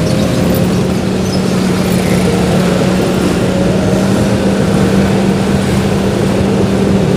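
A vehicle's engine running at a steady speed along with road noise, on the move. There is a steady hum at one unchanging pitch.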